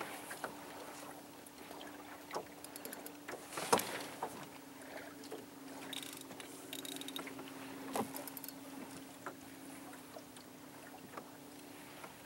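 Small boat motor running with a steady hum as the boat moves slowly over calm water, with water lapping and a few sharp knocks, the loudest about four seconds in.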